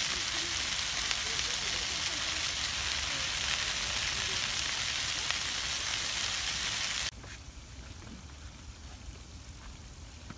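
Smelts, sausages and pork ribs sizzling on a foil-lined grill, a dense steady sizzle that stops abruptly about seven seconds in. A fainter sizzle of smelts frying in oil in a pan follows.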